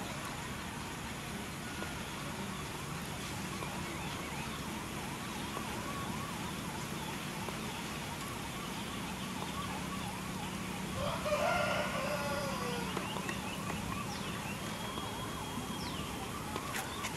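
A rooster crows once, about eleven seconds in, the loudest sound here. Under it runs a repeating high whine that rises and falls a couple of times a second.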